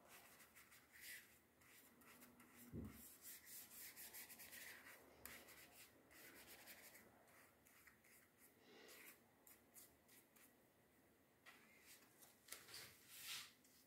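Faint swishing of a paintbrush stroked repeatedly over wet watercolour paper. One soft knock about three seconds in.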